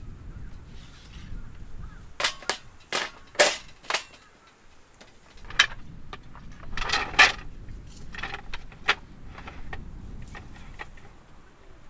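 A series of sharp knocks and clacks of hard objects, irregularly spaced and coming in two bunches, over a low background rumble.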